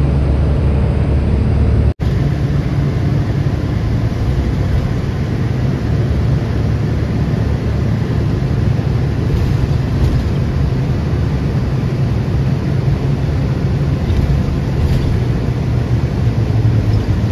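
Steady low rumble of a vehicle's engine and road noise, heard from inside the vehicle. It cuts out for an instant about two seconds in, then carries on much the same.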